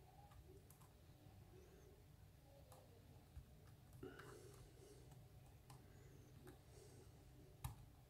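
Faint, scattered metallic clicks and ticks of a lock pick probing and setting pins inside a pin-tumbler lock under light tension during single-pin picking, the sharpest click near the end.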